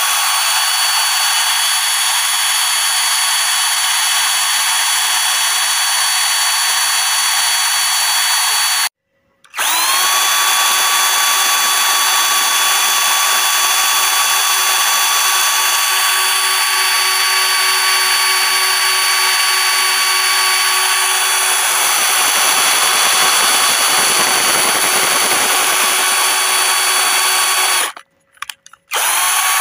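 Electric drill running at a steady high whine. About nine seconds in it cuts off for half a second and spins back up with a short rising whine, and near the end it stops and restarts the same way.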